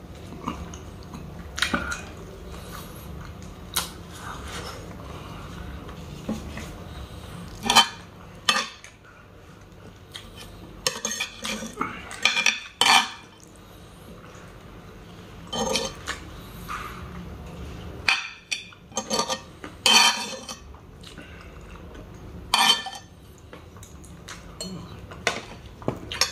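A metal spoon scraping and clinking against a black sizzling plate as food is scooped up, in short clatters at irregular intervals.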